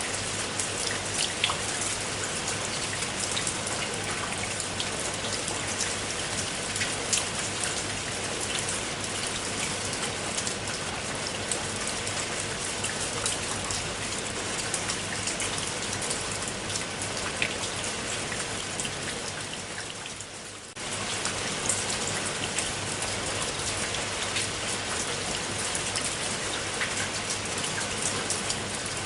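Steady rain falling, with many individual drops heard as small sharp taps. About two-thirds through it fades briefly, then comes back suddenly at full level.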